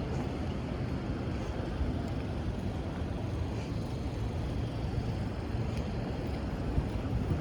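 Outdoor city ambience: a steady low rumble, with a few faint ticks.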